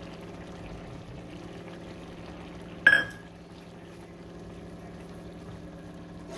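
Raw mango chutney simmering in a pan over a steady low hum, with one sharp metallic clink about three seconds in as a steel spoon strikes the pan to start stirring.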